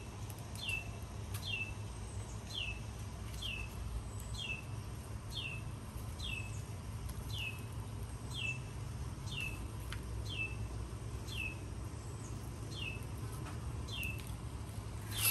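A songbird singing one short down-slurred note over and over, about twice a second, over a steady low background rumble.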